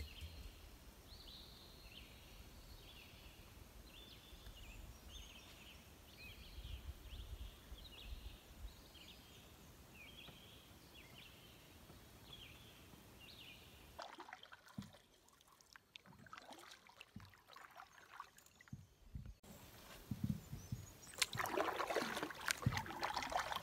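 A canoe being paddled quietly on calm water, with soft water trickle and drip from the paddle strokes. The water sound is loudest near the end. Short high chirps repeat about every second through the first half.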